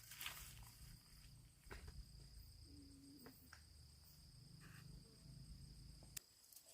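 Near silence with a faint, steady, high-pitched insect trill, over a low rumble and a few soft clicks.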